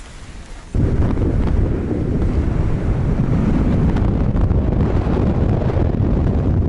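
Storm wind on open lake ice battering the microphone. Faint and sheltered at first, then suddenly loud about a second in, as a deep, gusting rush of wind noise that carries on steadily.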